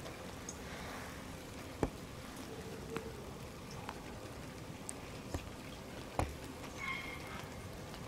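Light rain on wet asphalt: a steady patter with a few sharper drip ticks scattered through it, and a short high chirp about seven seconds in.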